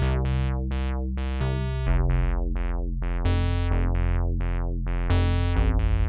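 PG-8X software synthesizer, an emulation of the Roland JX-8P, playing a patch: a held bass line that changes note every second or two under short, bright plucked notes repeating nearly three times a second, each one quickly losing its brightness as it fades.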